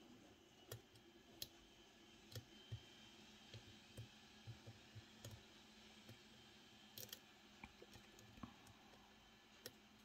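Small, sharp metallic clicks of a lock pick working the pins inside an M&C Matrix high-security lock cylinder, coming irregularly, over a dozen in several seconds.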